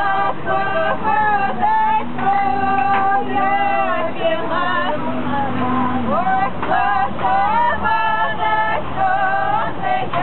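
High voices singing long held notes with vibrato, gliding between pitches, with a lower note held under them for a few seconds in the middle.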